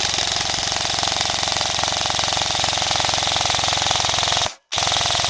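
ZCI M4 airsoft electric gun (AEG) firing on full auto, its gearbox cycling rapidly: one long burst of about four and a half seconds, then after a brief break a second burst begins near the end.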